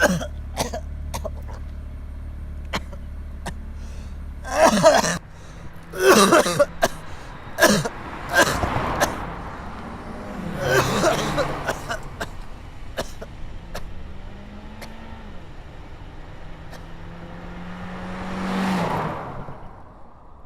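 A low engine rumble that stops about five seconds in, followed by a run of loud coughing bursts and a swell that rises and dies away near the end.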